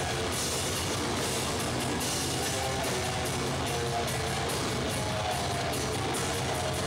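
Hardcore punk band playing live: distorted guitars and drums with a steady wash of cymbals, loud and unbroken.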